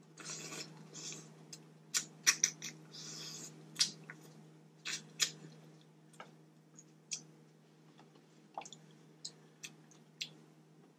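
Close-miked eating sounds: wet lip smacks and clicks, short sucking slurps and chewing of saucy boiled vegetables, coming irregularly with a few louder slurps near the start and about three seconds in.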